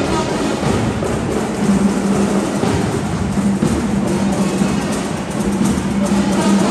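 Marching band playing: brass holding chords over drums and percussion, the drums most prominent in the middle.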